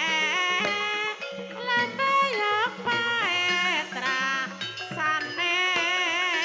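Ebeg accompaniment music: a singer's high, wavering melody sung over a gamelan-style ensemble, with drum strokes scattered through.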